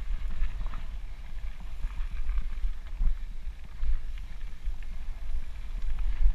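Mountain bike rolling along a dry gravel singletrack, heard through the rider's camera: uneven wind buffeting on the microphone and tyre rumble, with a few light clicks and rattles from the bike.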